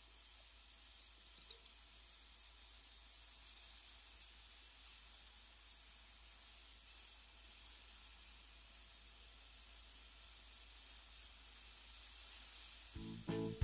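Hot dogs sizzling faintly on an electric indoor grill, a steady high hiss. Music starts just before the end.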